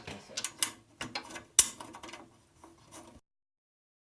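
Guillotine paper cutter's clamp mechanism being worked: a run of sharp metal clicks and knocks, the loudest about a second and a half in, before the sound cuts off suddenly.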